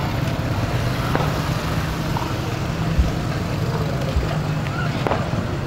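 A steady low engine hum, with a few short dull thumps about three and four seconds in.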